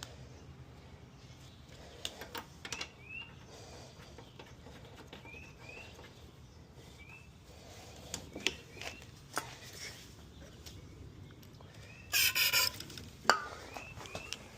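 A few short rising bird chirps over a quiet low hum, with scattered clicks and knocks and one brief harsh rasp about twelve seconds in.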